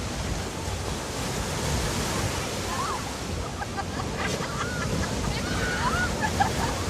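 Ocean surf washing onto a beach in a steady rush of noise, with short faint high calls in the background from about three seconds in.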